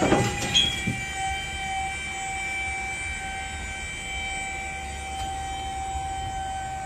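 Box truck liftgate's electric hydraulic pump running as it raises the platform: a steady whine that starts abruptly with a knock.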